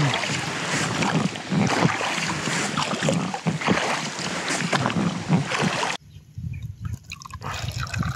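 Water splashing and sloshing close to the microphone on a float tube on open water. It cuts off abruptly about six seconds in, leaving a much quieter background.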